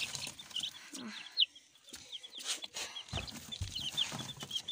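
Baby chicks peeping: many short, high cheeps in quick succession, with a few knocks and soft thuds from handling in the straw.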